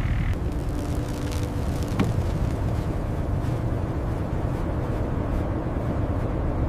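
Blizzard wind blowing as a steady low rumble, with a single sharp click about two seconds in.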